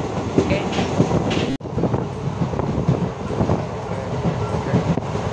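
Passenger train running at speed, heard from inside the coach by an open barred window: a steady rumble of wheels on the rails with scattered knocks. The sound breaks off for an instant about a second and a half in, then carries on.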